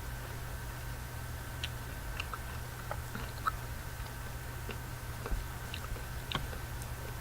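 Close-miked chewing of candy, with scattered wet mouth clicks and small crunches, over a steady low background hum.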